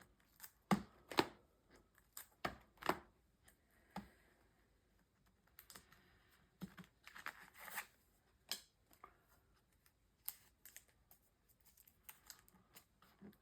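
Trading cards being handled and sorted: irregular light taps, clicks and short rustling slides of card stock.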